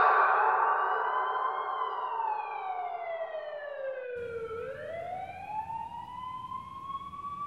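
An emergency-vehicle siren wailing slowly: its pitch glides down for about four seconds, then rises again, growing fainter over the first few seconds. A faint low background noise joins about four seconds in.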